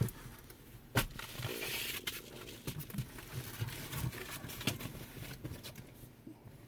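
Rustling and scraping movement noise with scattered sharp clicks and knocks, a loud click about a second in.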